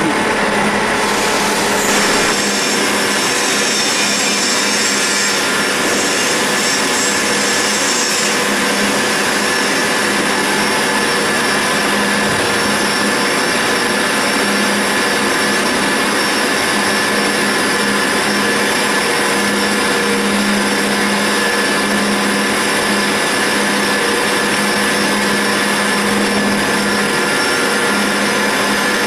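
CNC roll turning lathe cutting grooves into a large metal roll: a steady, loud machining noise of the tool shearing off hot chips over the hum of the machine's drive, with a few steady tones running through it.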